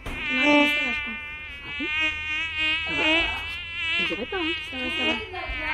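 Green bottle flies buzzing close by: a continuous droning buzz that wavers up and down in pitch.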